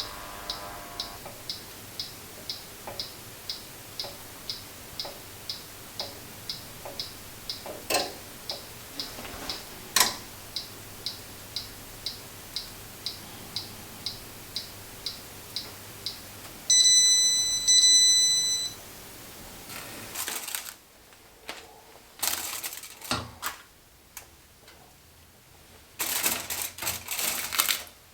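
Mechanical cooking timer ticking steadily, about two or three ticks a second, then its bell ringing for about two seconds as the time runs out. Irregular clattering and handling noises follow.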